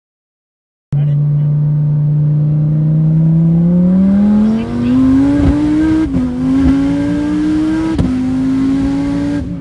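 Nth Moto twin-turbo V10 of a 2017 Dodge Viper ACR-E, heard from inside the cabin, starting about a second in at a steady cruise. It then accelerates hard at full throttle with the engine note rising, and the pitch drops twice at upshifts about two seconds apart.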